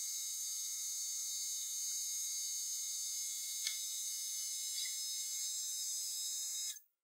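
A small high-speed power tool running steadily with a high whine, with a single click about three and a half seconds in; it stops abruptly near the end.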